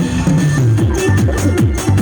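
Electronic dance music played loud through a DJ sound system, its bass falling in quick repeated downward sweeps.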